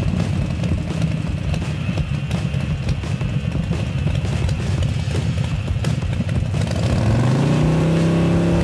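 Motorcycle engine sound effect idling with a rough, steady rumble, then revving up about seven seconds in and holding at the higher pitch.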